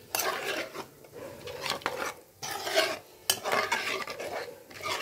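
Steel spoon stirring a thick tamarind egg curry in a metal pan, scraping against the pan in strokes about once a second.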